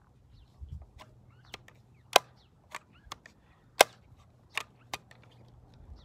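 BB gun being handled, loaded and worked: a series of sharp clicks and snaps, the two loudest about two and four seconds in.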